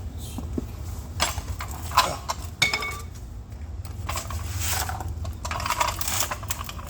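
Irregular metallic clinks, clanks and rattles from a bottle jack being handled and set in place under the car's suspension, some with a short ring, over a steady low hum.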